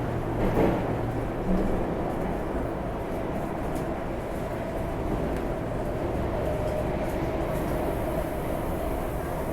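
Cabin noise of an Alstom Metropolis C751C metro train running: a steady low rumble with a faint held whine, and a couple of short knocks in the first two seconds.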